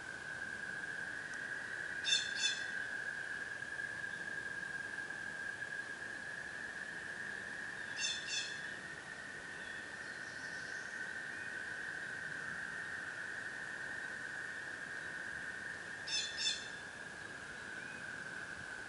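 Frogs calling in a steady, unbroken high trill. A bird's short call of a few rapid high notes comes three times, about six to eight seconds apart, and is the loudest sound.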